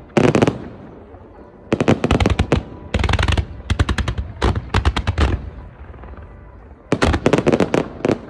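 Fireworks display: rapid strings of sharp bangs as shells go off in quick salvos, in clusters of half a second to a second with short lulls between, the longest volley near the end.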